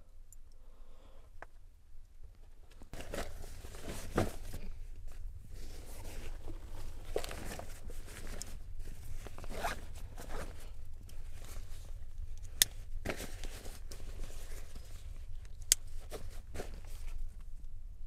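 Irregular rustling, crinkling and scraping of belongings being handled and packed away, with two sharp clicks in the second half.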